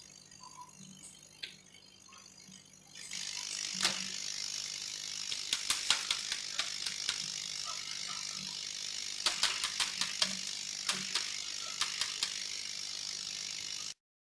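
CNC laser cutting machine running while cutting an acrylic sheet: a steady hiss that starts about three seconds in, with scattered sharp clicks, cutting off suddenly near the end.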